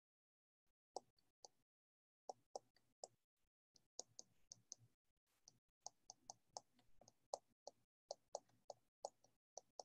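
Near silence broken by faint short clicks and taps, sparse at first and a few per second in the second half: a stylus tapping on a tablet screen while handwriting.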